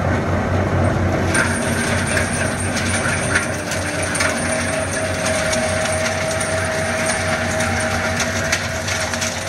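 Valtra tractor engine running under load, driving an FAE RSM stone crusher whose rotor runs steadily while stones crack and knock against it in frequent sharp clicks.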